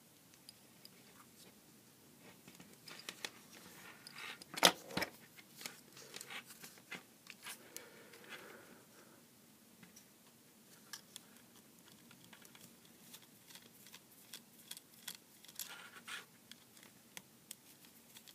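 Scattered small clicks and scrapes of metal hand tools on the plastic housing of a small USB vacuum cleaner being taken apart: a pick prising out its rubber O-ring, then a precision screwdriver working inside. One louder sharp click comes about four and a half seconds in.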